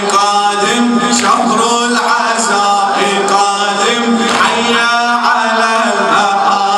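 A man chanting a mournful Arabic Muharram lament solo into a microphone, in long held notes.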